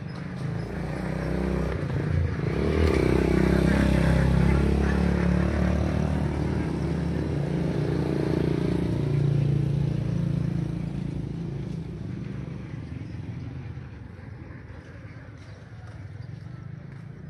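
A motor vehicle engine running close by. It grows louder over the first few seconds, holds for several seconds, then fades away, as a vehicle does when it passes.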